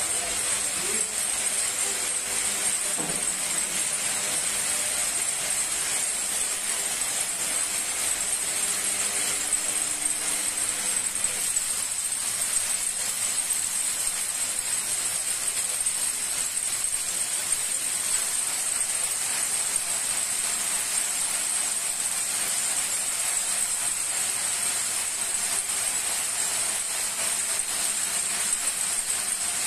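Wire braiding and winding machines running steadily: an even mechanical noise with a constant high-pitched tone on top.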